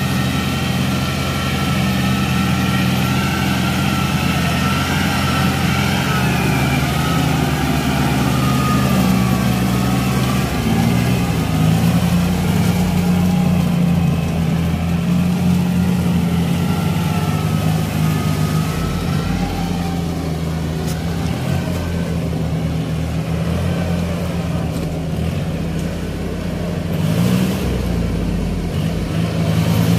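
Kubota L4018 tractor's diesel engine running steadily under load as it pulls a rotary tiller through wet paddy mud, with a higher whine over the engine note that wavers in pitch. The engine note shifts about a third of the way in.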